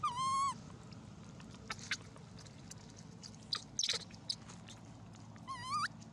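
Baby long-tailed macaque giving two short, high whimpering calls, one at the start and one near the end, each bending upward at its close, with a few short rasping squeals in between.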